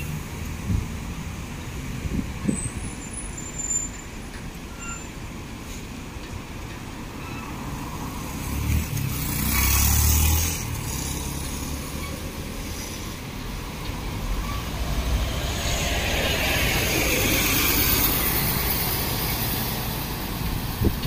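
City road traffic: steady street noise, with a heavy vehicle passing loudly about ten seconds in and another vehicle swelling and fading toward the end.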